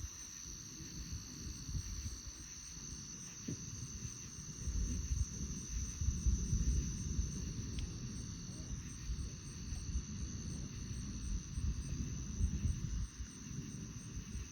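Night insects trilling: steady high tones with a fast, even pulsing above them, under an uneven low rumble of wind on the microphone.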